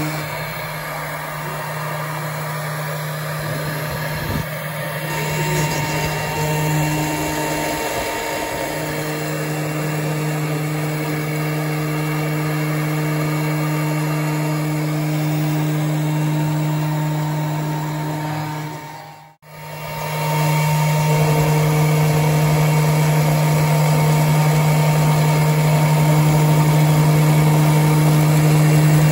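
AMMA Extrema Q10 CNC router's spindle running at a constant pitch while its bit engraves a plexiglass sheet, with a steady cutting hiss. The sound cuts out briefly about two-thirds of the way through and comes back a little louder.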